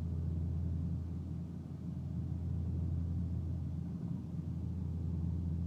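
Chevrolet Cobalt SS Turbo with a rebuilt engine running, heard as a steady low rumble that neither rises nor falls, with no rev change.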